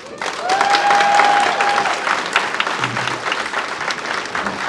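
Congregation applauding and cheering, with one long held cheer in the first two seconds.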